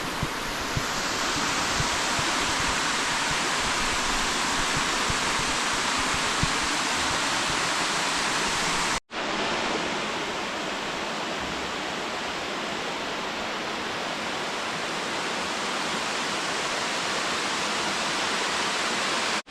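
Steady rushing of Umbrella Falls, a small waterfall, broken for an instant about halfway through before it goes on slightly duller.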